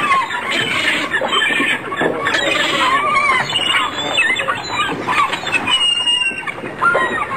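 A flock of gulls calling, many overlapping cries rising and falling in pitch.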